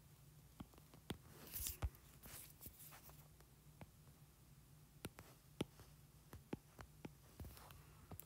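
Faint, irregular taps of a stylus on an iPad's glass screen, a dozen or so spread across the stretch, over a low steady hum.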